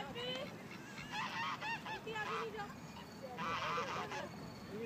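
Waterfowl calling in repeated runs of short, harsh calls, with the loudest burst about three and a half seconds in.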